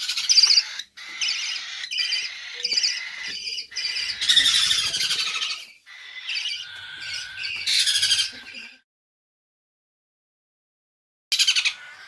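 Hungry parrot chicks giving harsh, repeated begging squawks at feeding time. The calls stop dead for a couple of seconds near the end, then start again.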